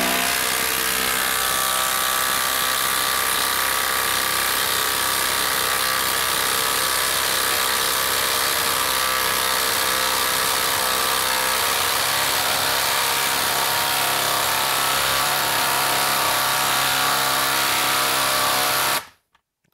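Ryobi HP brushless impact driver hammering steadily as it drives a lag screw into wood, then stopping abruptly near the end.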